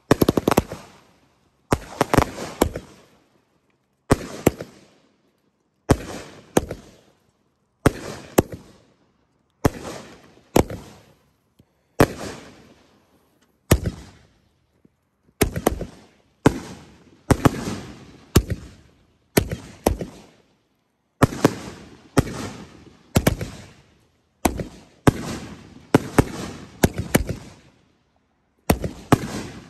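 Consumer firework cake firing shot after shot, about one every one and a half to two seconds: each shot a sharp crack or two followed by a fading echo.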